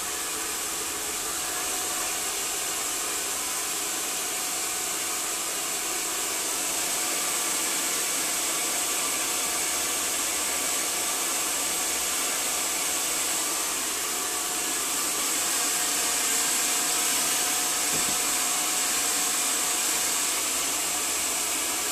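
Handheld hair dryer running steadily as it blow-dries long wet hair: an even hiss of blown air that doesn't let up.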